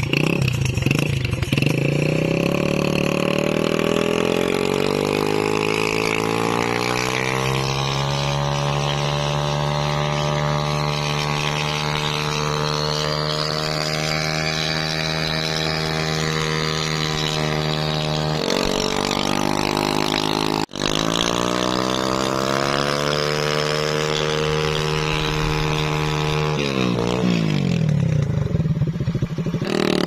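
The single-cylinder four-stroke engine of a 70cc Honda motorcycle revved hard and held at high revs while the bike stands still, its doubled rear tyres spinning on the asphalt in a burnout. The revs climb over several seconds, dip once a little after the middle, climb again, then fall away near the end.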